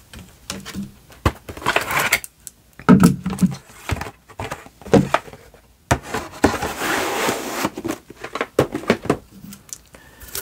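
Handling noise of bat gift boxes and their pieces: a box lid set down and closed, a wooden piece and cardboard tapped and knocked on the cabinet top, with a stretch of rubbing and sliding a little past the middle.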